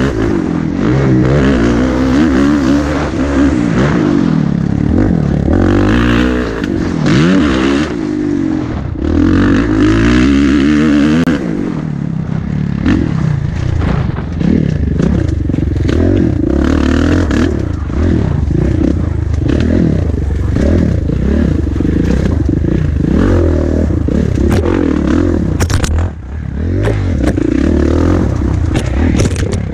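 Kawasaki four-stroke single-cylinder motocross bike engine, heard from the rider's helmet at race pace, revving up and down again and again through the gears, with the throttle briefly dropping off near the end.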